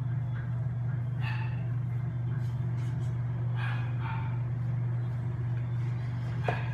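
A steady low hum, with faint short voice-like sounds a few times.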